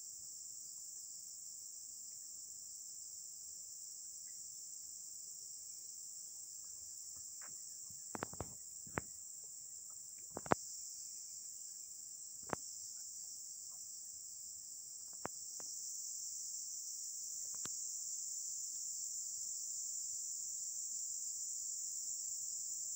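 Insects in steady chorus, a continuous high-pitched drone that grows a little louder about two-thirds of the way through. A handful of sharp clicks sound through the middle, the loudest events.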